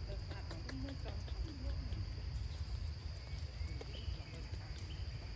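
Steady high-pitched drone of insects, over a constant low rumble, with a few faint short calls or squeaks in the first second or two and again around the four-second mark.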